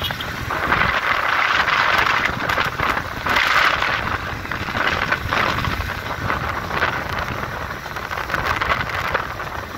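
Wind rushing and buffeting over the microphone of a moving motorcycle, with the bike's road and engine noise underneath; the wind swells and eases unevenly.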